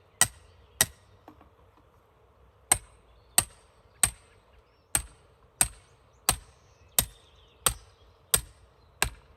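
Sledgehammer blows on the top of a metal closet-rod stake, driving it into the ground: two sharp blows, a pause of about two seconds, then a steady run of about ten blows, roughly three every two seconds.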